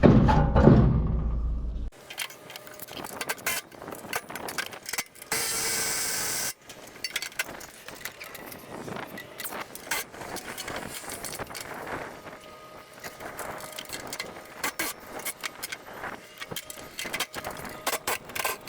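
Metal tools and small parts clinking and clicking as an engine is worked on by hand, with a low rumble in the first two seconds and a steady hiss lasting about a second around six seconds in.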